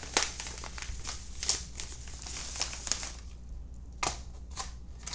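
Packaging crinkling and rustling as it is handled, with a few sharp clicks and taps scattered through.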